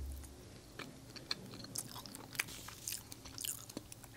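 Close-miked chewing and biting of a gulab jamun, with a run of sharp mouth clicks and smacks from about a second in. A brief low bump at the very start.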